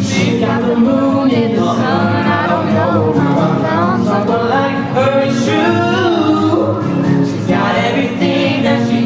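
Music: a group of voices singing a song, a moving melody line over steady held lower notes.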